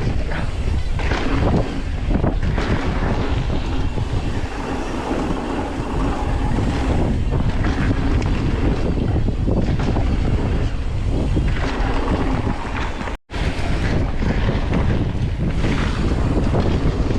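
Wind buffeting the microphone over the rumble and rattle of a mountain bike's tyres on a dusty dirt trail, ridden downhill at speed. The sound cuts out for a split second about thirteen seconds in.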